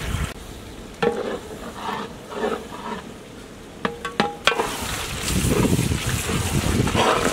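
Big metal ladle stirring oily tomato-and-spice masala in a large metal cooking pot. A few sharp metal knocks of the ladle against the pot come a little past the middle, then a louder, steady scraping, sizzling stir.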